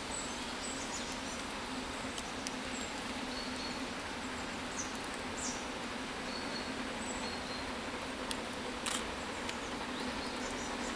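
Steady outdoor background noise with a low hum, with short, high bird chirps scattered through it and a few faint clicks near the end.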